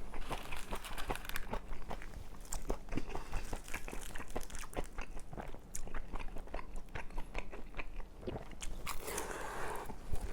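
Close-miked chewing of braised pork and kimchi, with many quick wet mouth clicks and soft crunches.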